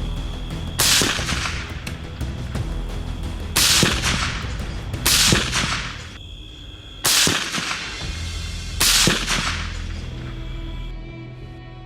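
Five rifle shots at irregular spacing, each sharp crack trailing off in a short echo, over background music with held tones.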